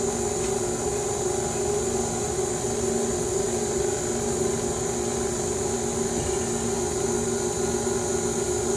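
Stand mixer running steadily, its flat beater turning in a metal bowl as it beats coconut oil with coconut sugar: an even motor hum with a faint high whine.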